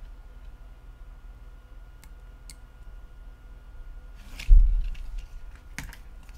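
Small handling sounds of smartphone parts being moved on a table: a few light clicks, a short rustle and a dull thump about four and a half seconds in, over a low steady hum.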